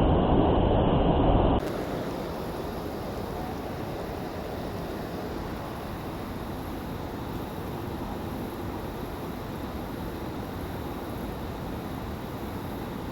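Steady rush of flowing stream water. A louder, duller stretch of rushing noise cuts off abruptly about one and a half seconds in, leaving a quieter, even rush.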